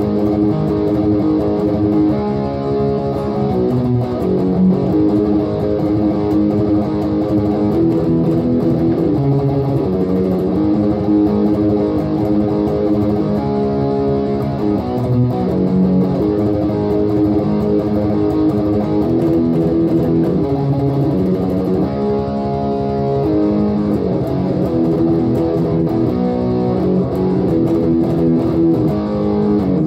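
Steinberger GR4R headless electric guitar being played, picked notes following one another without a break.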